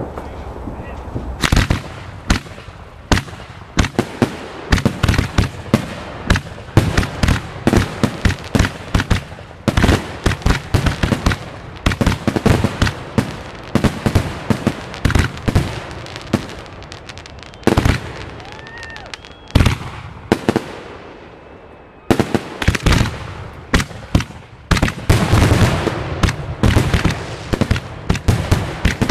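Aerial fireworks display: a rapid, dense barrage of shell bursts and crackle starting about a second and a half in, easing into a short lull about two-thirds of the way through, then picking up again just as densely.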